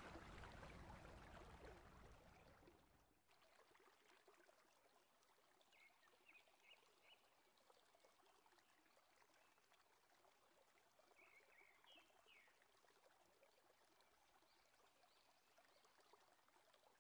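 Near silence. Faint running stream water fades out over the first three seconds, then only faint hiss remains, with a few short high chirps about six and twelve seconds in.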